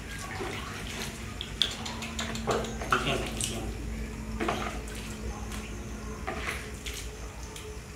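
Wet scrubbing and splashing as soap is rubbed into a baby monkey's soaked fur by hand, with irregular slaps and drips of soapy water.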